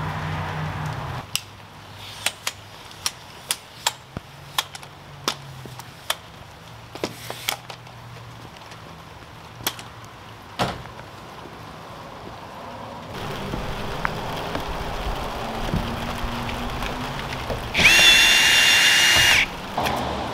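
Irregular sharp metallic clicks and knocks, about a dozen spread over ten seconds. Near the end a small motor runs with a steady high whine for a little under two seconds, then cuts off.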